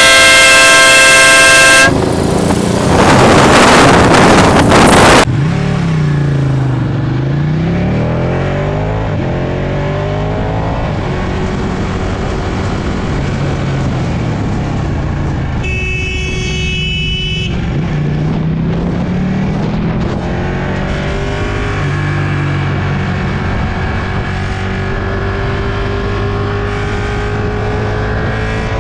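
A vehicle horn blares steadily for about two seconds, then a loud rush of noise lasts about three seconds. After that a motorcycle engine runs under way, its pitch falling and rising through revs and gear changes, with another horn blast of about a second and a half near the middle.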